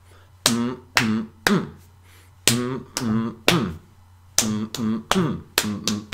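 Hambone body percussion: a hand striking down and then up against the forearm, then clapping the elbow, giving three sharp snapping slaps about half a second apart, repeated in groups about every two seconds. A short voiced syllable goes with each stroke.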